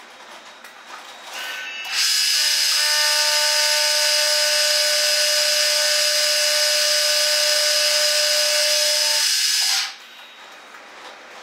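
Vertical milling machine running an end mill through a quarter-inch 4140 alloy steel rod, cutting one flat of a hex. A steady whine of several tones over a hiss starts abruptly about two seconds in and cuts off suddenly shortly before the end.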